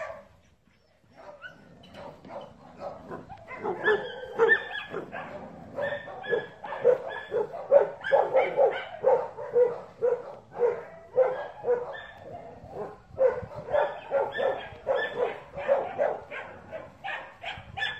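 A dog barking over and over in short, high-pitched barks, about two a second, growing louder about four seconds in.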